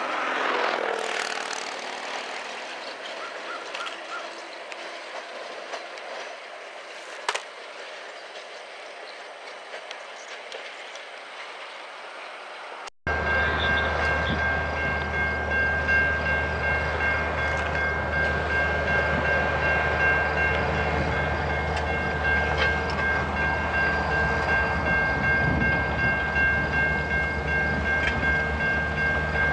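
A CN diesel locomotive pair running along a rail yard, its engine noise fading. Then, after a sudden cut, a CN freight train of covered hoppers approaching, its diesel locomotives running loud with a steady low rumble and a steady high whine over it.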